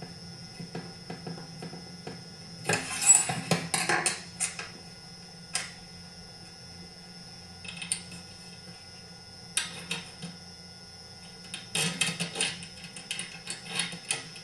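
Metal chainsaw parts and hand tools clinking and rattling in several short bursts of quick clicks, as handlebar brackets are fitted and their bolts started, over a low steady hum.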